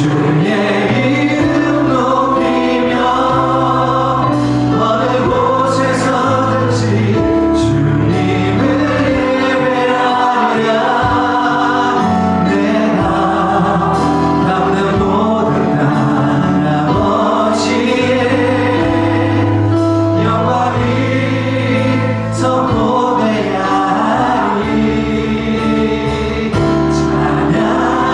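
Congregation and worship band singing a Korean praise song: many voices in sustained melody over keyboard and bass, with cymbal strokes.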